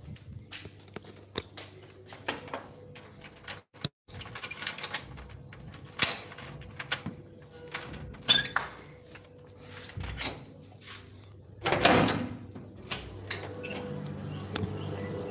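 Handling noise from a phone being carried while it records: irregular clicks, knocks and rustles, with a louder rustle about twelve seconds in.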